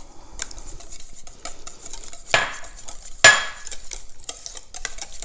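Whisk clicking and scraping against a ceramic mixing bowl as eggs are stirred into a thick pumpkin batter, with two louder clinks about a second apart past the middle.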